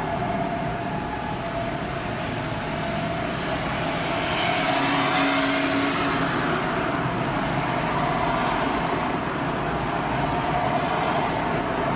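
Road traffic: a motor vehicle passes close by about four to six seconds in, its tyre and engine noise rising and then falling away.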